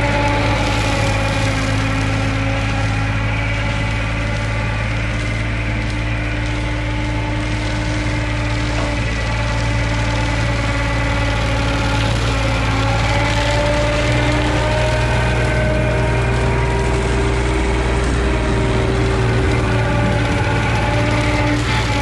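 Terex PT30 compact track loader's diesel engine running steadily under load while its front-mounted rotary cutter (bush hog) spins and mows tall grass, the cutter's gearbox freshly rebuilt with new output bearings.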